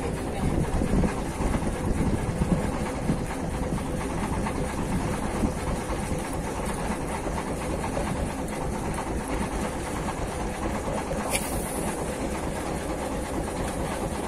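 Steady rumble of a small fishing boat's engine running, mixed with wind and choppy water, and one brief sharp click about eleven seconds in.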